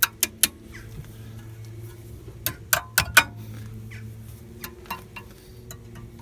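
Sharp metallic clicks and knocks of tools being handled: three quick ones at the start and four more about two and a half to three seconds in, over a steady low hum.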